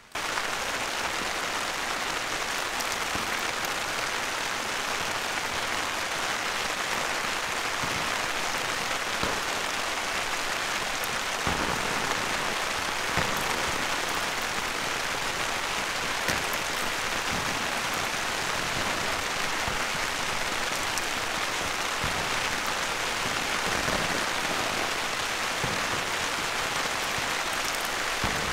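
Steady rain falling, an even hiss with a few louder drips landing now and then.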